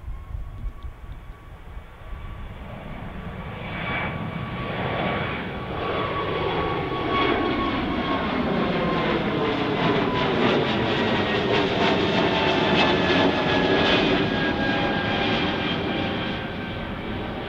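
Airbus A220-300 jet airliner's Pratt & Whitney PW1500G geared turbofans at climb-out power as it passes overhead: the engine noise swells to its loudest about three-quarters of the way through, with a whine that slowly falls in pitch, then begins to ease.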